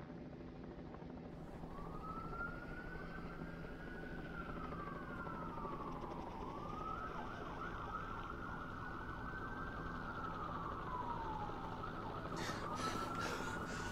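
Police siren wailing in slow cycles: the pitch rises, holds for a few seconds, then slides down, three times over, above a steady low city rumble. A few sharp rustles or clicks come in near the end.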